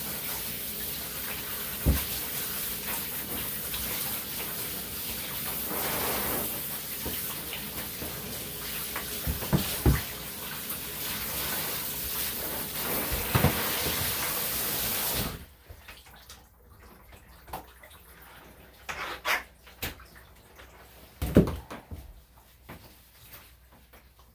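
Water running steadily from a bathtub sprayer, shut off abruptly about fifteen seconds in. A few scattered knocks and rustles follow.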